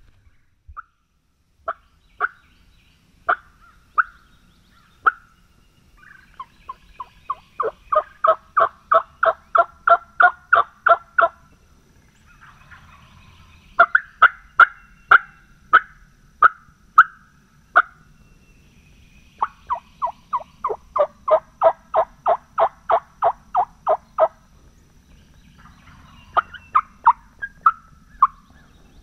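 Wingbone turkey call sounding a hen's yelps: a few single notes, then long runs of quick, evenly spaced yelps that grow louder, with pauses between the runs and scattered notes near the end.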